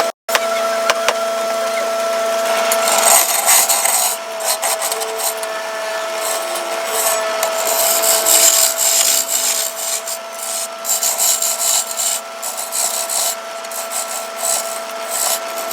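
Handheld power carving tool running steadily with a constant motor whine, grinding and abrading wood with an uneven rasping hiss that swells and fades as it bites.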